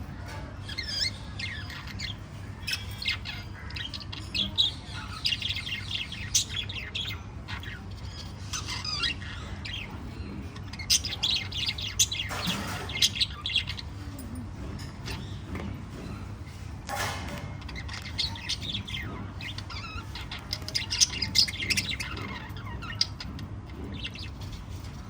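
Several small pet parrots chirping and chattering together in rapid short calls, with a couple of louder, harsher squawks partway through, over a steady low hum.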